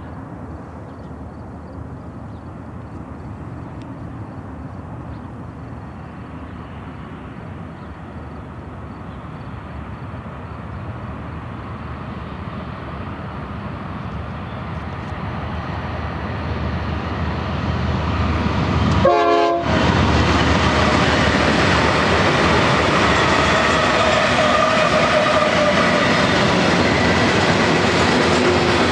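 GE ES44DC diesel locomotives approaching and passing, their engine rumble growing steadily louder, then the loud steady rumble and rolling of freight cars going by. A brief pitched tone sounds about two-thirds of the way in, at the loudest point.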